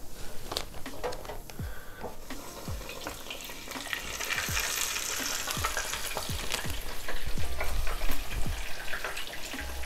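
Flour-coated chicken breast frying in hot oil in an electric deep fryer: a sizzling hiss with many small pops, building up strongly a few seconds in as the pieces go into the oil.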